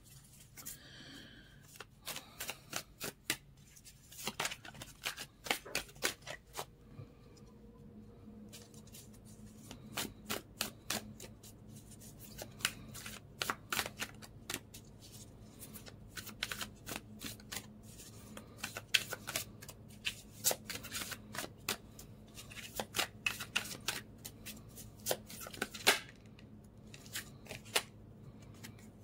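A deck of tarot cards being shuffled by hand: long runs of quick, sharp card clicks and flicks in clusters, with brief lulls.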